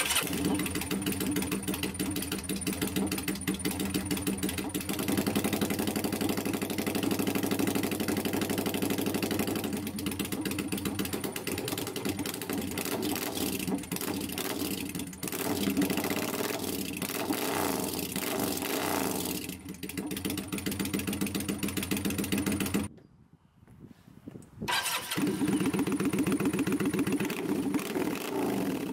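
Kawasaki VN800's V-twin running through open stainless steel Longshot exhaust pipes with no dB-killer baffles fitted, its revs rising and falling. About 23 seconds in it stops. Some two seconds later it runs again, now with the dB-killer inserts in the pipes.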